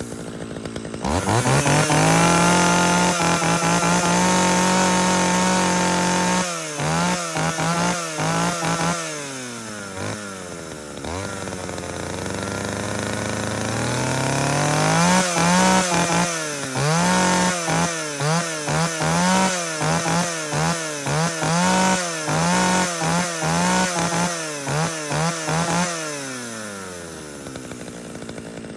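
Vintage two-stroke chainsaw running: it revs up to a high held speed about a second in, is blipped a few times, eases back toward idle, then is revved in quick repeated throttle blips, about one a second, before dropping back to idle near the end.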